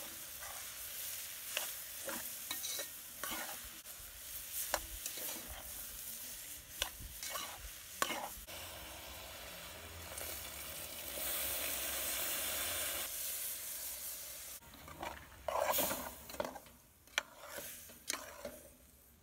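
Veggie chunks sizzling in an aluminium pot while a metal spoon stirs and scrapes them, with repeated short clicks and scrapes. About ten seconds in, browning and water are poured in and the sizzle swells into a steady hiss. A few seconds later it turns quieter, with more stirring strokes.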